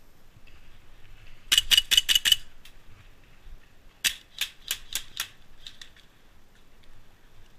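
Airsoft pistol firing two quick strings of about five sharp shots each, the first about a second and a half in and the second about four seconds in, followed by a few fainter clicks.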